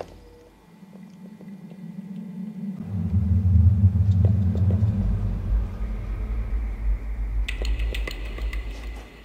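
A deep, steady rumble that builds in layers, getting louder about three seconds in and sinking lower about five seconds in. A faint, thin high tone joins near the end.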